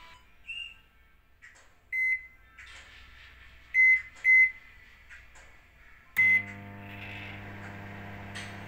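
Microwave oven keypad beeping four times as buttons are pressed to set the cooking time, then the oven starting about six seconds in and running with a steady low hum.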